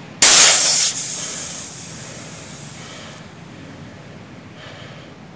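High-pressure air, about 2500 psi, bled off from a PCP hand pump and its fill line: a sudden loud hiss a moment in that tails off over the next two or three seconds as the pressure falls.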